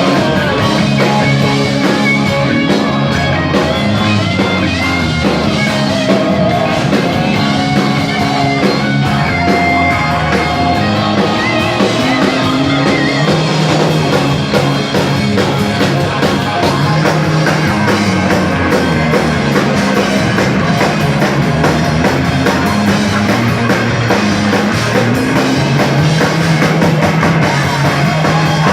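Live rock band playing loudly and steadily, with electric guitar and drum kit.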